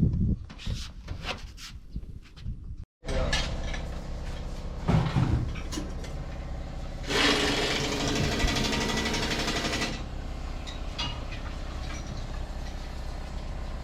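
Workshop machinery: a motor runs with a steady hum, with a loud hiss for about three seconds in the middle and scattered knocks.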